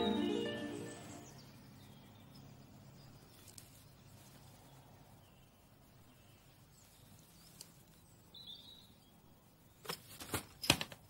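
Music fading out, then a faint quiet ambience with a few short, soft bird chirps, and a quick cluster of sharp clicks and knocks near the end.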